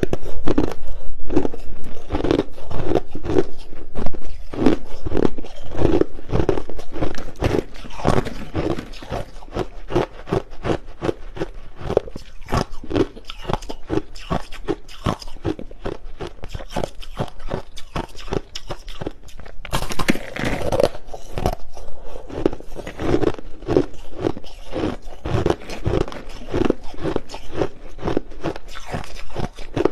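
Hard, clear crushed ice being bitten and chewed close to the microphone: a fast, continuous run of crisp cracks and crunches, loudest in the first several seconds.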